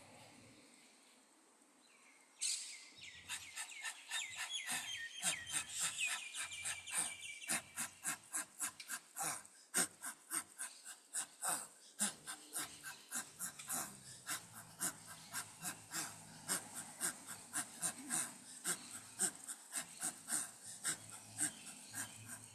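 Rapid, forceful panting breaths, about three or four a second, starting about two and a half seconds in.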